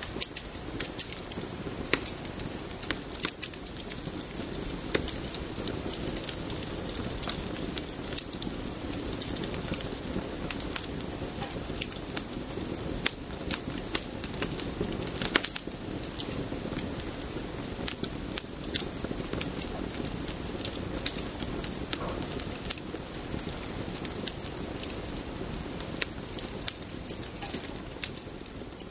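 Campfire crackling: burning wood giving off frequent, irregular sharp pops and snaps over a steady low noise of flames.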